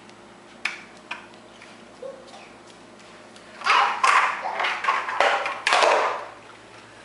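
Plastic ice cube trays clacking on a tile floor: two sharp taps, then about two and a half seconds of rapid clattering as trays are knocked against each other and the floor.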